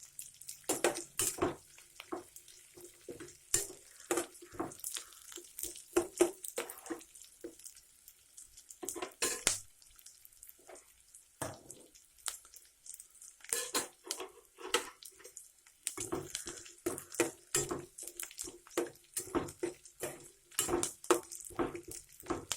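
Metal spoon clinking and scraping against a pan in irregular strokes as chopped onions and green chillies are stirred while they fry, with a few short pauses in the stirring.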